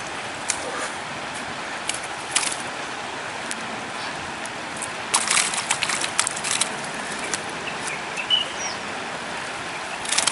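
Shallow river water running steadily, with scattered splashes and wet rustles as a cast net holding fish is gathered in, busiest about five to six and a half seconds in.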